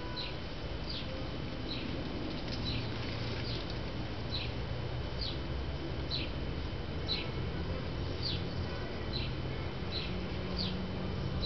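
A bird repeating a short, high, falling chirp at a steady pace, a bit more than one a second, over a low steady background rumble.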